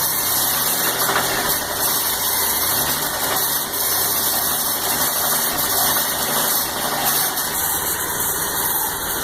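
A 1995 Pontiac Firebird's 3.8-litre V6 running steadily with a knock from the bottom end. The knock came on after the oil light lit and turned out to be a rod knock on the sixth cylinder.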